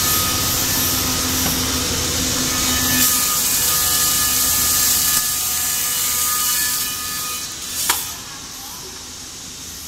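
Double-sided wood planer planing rough timber boards: a loud, steady run of cutterheads and motor with a hiss of flying chips. About seven seconds in the noise drops as the boards clear the cutters, a sharp knock comes just before eight seconds, and the machine runs on more quietly.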